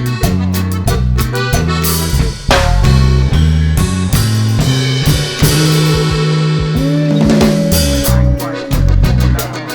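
Upbeat background music with drum kit and a bass line; around seven seconds in a long held note bends in pitch, and the drums come back in near the end.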